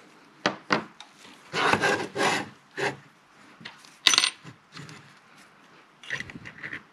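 Handling noise from a switch-mode power supply's open metal chassis being turned and slid around on a cutting mat: a couple of knocks, scraping for about a second, a sharp metallic clink about four seconds in, and a short rattle of small clicks near the end.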